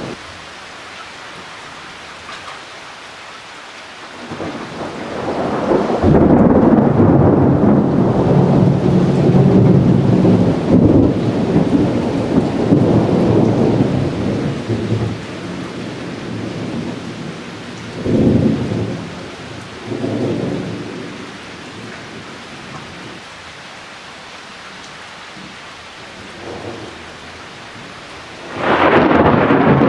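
Thunder over steady rain: a long roll builds about four seconds in, rumbles loudly for about ten seconds and dies away. Two shorter rumbles follow, then a fresh loud burst of thunder breaks out near the end.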